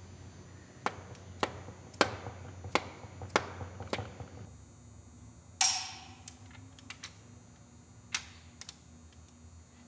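Mallet tapping a cast-iron main bearing cap down onto the crankshaft of a John Deere 4230 engine to seat it, six sharp taps a little over half a second apart. A louder clatter about halfway through, then a few light metallic clicks.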